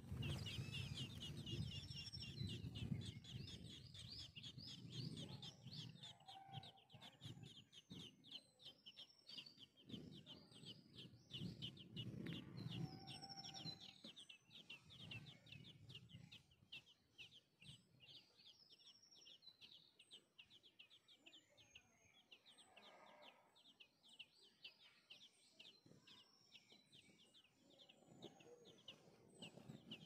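Nestlings begging for food: a faint, rapid, continuous chatter of short high chirps, densest in the first half and thinning later, with a few higher single chirps over it and a low rumble underneath.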